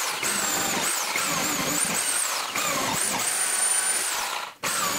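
Handheld drill boring a 7/8-inch Forstner bit into stacked plywood, chewing out chips, its high motor whine rising and falling as the bit loads up. A brief break near the end, then it drills on.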